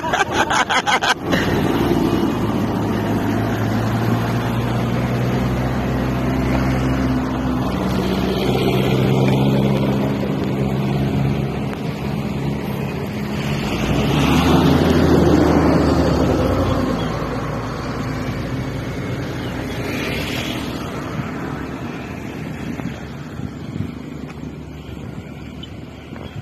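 Motor vehicle engines running on the road, with a steady low drone that grows louder and fades away about midway, and another vehicle passing a few seconds later. A quick rattle of clicks comes right at the start.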